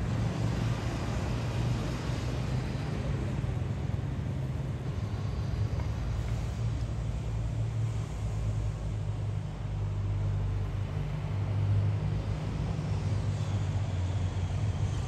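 Steady low rumble of road traffic and engines in a town street, swelling slightly about twelve seconds in.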